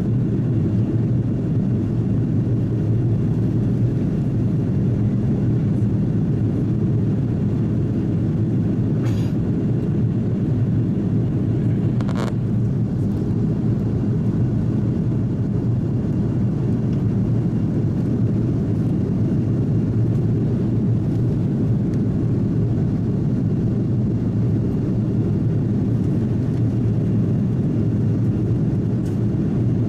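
Steady drone of an Airbus A330-300 heard from inside the passenger cabin in flight: engine and airflow noise, deep and unchanging, with two faint clicks near the middle.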